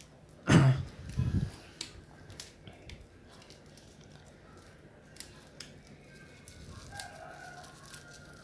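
A rubber band being stretched and wound around a small plastic bag of bait, giving faint scattered clicks and plastic rustles. A brief loud sound comes about half a second in.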